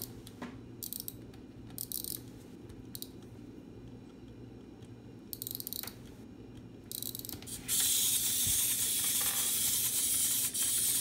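Small plastic parts clicking and rattling as the legs of a Zoids Wild Scorpear scorpion model kit are repositioned by hand. About eight seconds in, its walking mechanism starts up and runs with a steady, high-pitched mechanical whirr and leg rattle as the toy walks.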